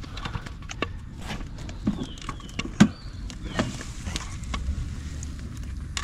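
Irregular taps, knocks and small splashes as a fish trap is handled, with a tilapia flapping inside it. One knock about three seconds in is louder than the rest.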